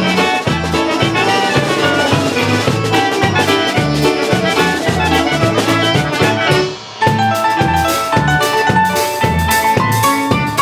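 Live polka band playing a Polish polka: clarinets carry the melody over a steady bass-and-drum beat, with concertina and keyboard. The music drops out for a moment about two-thirds of the way through, then comes back with a long held high note.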